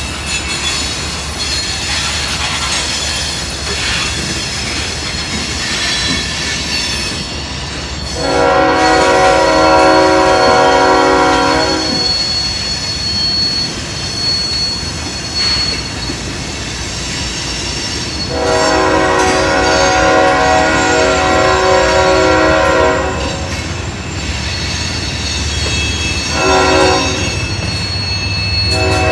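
Covered hopper cars of a freight train rolling past, wheels squealing in a thin, high, steady tone on the curve. A multi-chime locomotive horn sounds over it: two long blasts, a short one, then a long one starting near the end, the long-long-short-long grade crossing signal.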